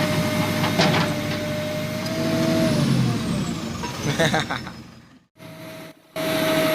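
Tractor loader backhoe's engine running with a steady whine, with a couple of knocks about a second in. The sound fades away about four to five seconds in and breaks off in two short near-silent gaps, then the engine comes back near the end.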